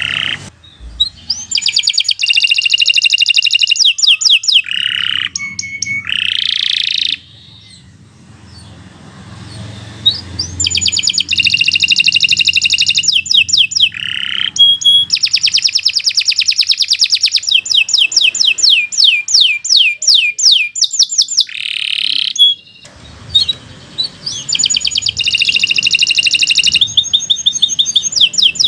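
Domestic canary singing long phrases of rapid, repeated notes and trills, some fast buzzy rolls and some slower clear whistled notes, with a pause of a few seconds about a quarter of the way in.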